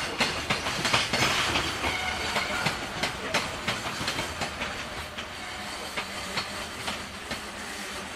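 Wheels of a JR Freight container train's Koki 104 flat wagons clacking over the rail joints as the wagons roll past, a quick run of repeated clicks that thins and fades in the second half as the last wagons go by.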